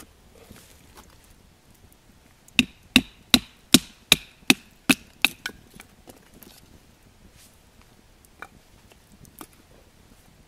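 Firewood being cut by hand: a quick run of about eight sharp strokes on wood, a little under three a second, starting a couple of seconds in, followed by a few scattered knocks.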